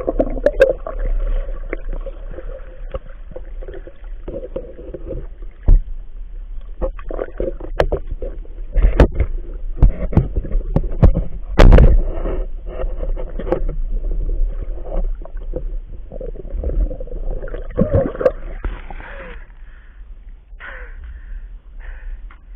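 Muffled underwater sounds of a diver moving through a river, heard through the camera's housing: water churning and gurgling, with many sharp knocks and scrapes. The loudest knock, just before twelve seconds in, comes as the spear strikes a fish.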